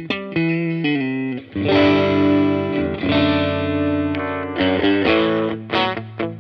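Electric guitar, a Warmoth Strat, played through a Laney CUB-Super 12, a 15-watt all-tube combo with one 12-inch speaker: a few short chords, then long ringing chords, then quicker picked notes near the end. The amp's gain is being turned up as it plays, bringing the clean tone toward breakup.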